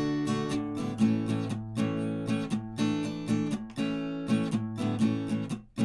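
Background music: an acoustic guitar strumming chords in an irregular rhythm, with a brief break near the end.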